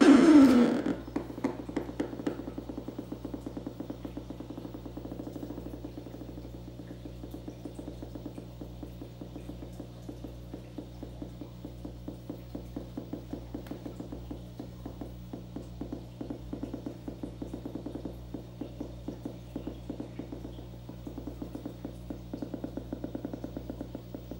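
Electric eel's electric discharges picked up from the tank water and made audible: a loud buzzing shock in the first second that falls in pitch, then a continuous fast, irregular crackle of clicks over a steady low hum.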